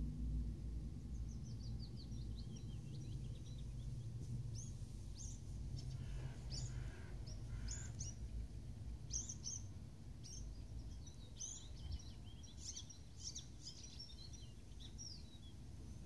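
Several small songbirds singing: short high chirps scattered throughout, with a quick series of notes falling in pitch in the first few seconds. Under them runs a low, steady background rumble.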